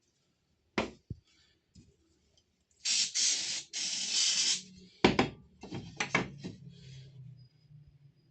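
Two bursts of spray hissing, about a second and a half in all, with a sharp knock a couple of seconds before them and a run of knocks and clicks just after.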